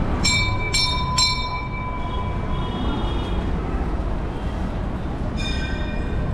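Hanging temple bell struck by hand three times in quick succession, about half a second apart, each strike ringing on with bright overtones, then a single ringing strike near the end.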